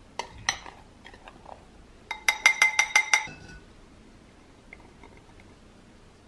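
A spoon clinking against a glass mixing bowl while flour is spooned and tapped out into a sieve: a few light taps, then about two seconds in a quick run of about eight ringing clinks over about a second.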